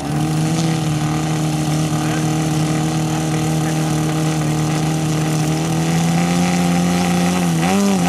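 Moki four-stroke radial engine of a large-scale RC AT-6 Texan model running, its revs stepping up right at the start and then holding steady. Near the end the revs rise and dip as the throttle is worked.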